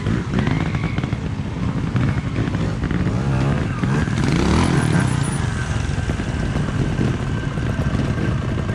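Trials motorcycle engines revving up and falling back again and again, throttle blips of the kind used to lift the front wheel into a wheelie.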